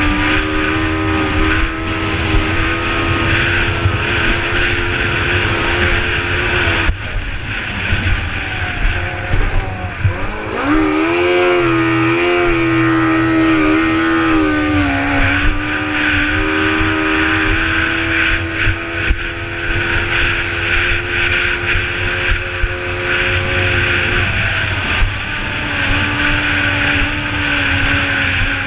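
Tri-hull race boat's engine running hard, heard from on board over a constant rush of wind and water. About seven seconds in the engine note drops, then around ten seconds it rises sharply again and wavers for a few seconds before settling back to a steady high note.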